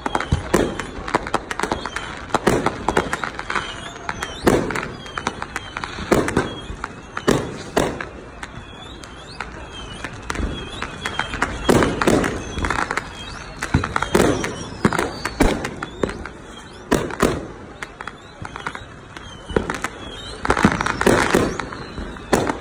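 Fireworks going off continuously, with many aerial shells and firecrackers bursting in sharp bangs and crackling rattles, and louder clusters of explosions every few seconds. Now and then there are short falling whistles.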